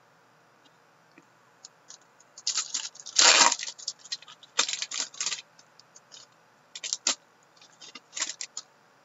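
Foil wrapper of an Upper Deck hockey card pack being torn open and crinkled by hand. After about two seconds of quiet come sharp crackling rustles in irregular spurts, the loudest a little over three seconds in.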